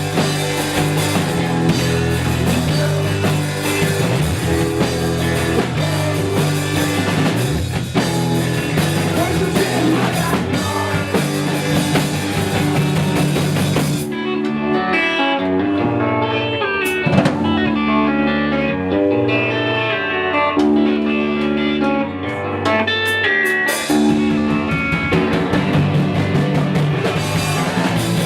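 Rock band playing an instrumental passage with electric guitar, bass and drums. About halfway through the drums and cymbals drop out, leaving picked guitar notes over the bass, and the full band comes back in near the end.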